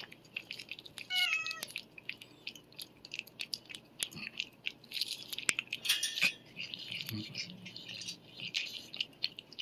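Cat licking paste from a squeeze-tube treat: a run of quick wet lapping clicks, with one short meow about a second in.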